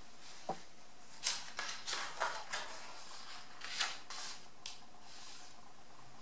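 A page of a hardcover picture book is turned and smoothed flat by hand. There is a quick run of short papery rustles and swishes over a few seconds.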